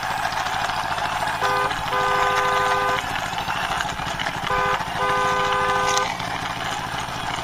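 Vehicle horn sounding a short toot then a longer blast of about a second, repeated three times about every three seconds, over a steady engine-like drone.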